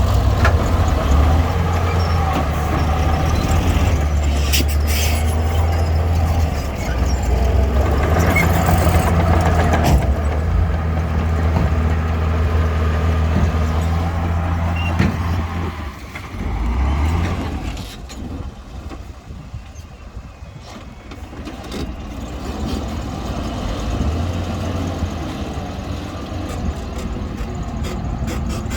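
Diesel engine of heavy earthmoving machinery running steadily under work, loud for the first half, then dropping away about 17 seconds in before building up again toward the end.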